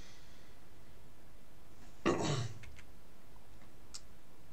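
A man clearing his throat once, briefly, about two seconds in, over a steady background hiss. A couple of faint clicks follow.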